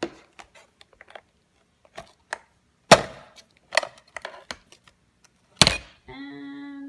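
Plastic clicks and knocks as the iLife A4 robot vacuum's removable dust bin is unclipped, opened and handled, with two sharper knocks about three seconds in and near the end. A short steady tone follows in the last second.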